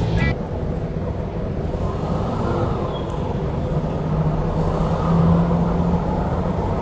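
A steady low rumble of background noise, with a low hum that swells from about four to six seconds in.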